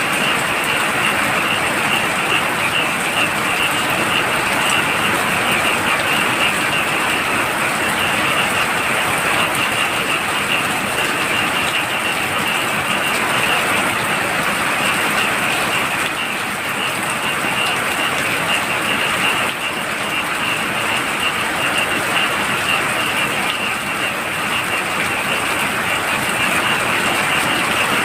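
Heavy rain falling steadily, with a continuous high-pitched chorus of frogs calling over it.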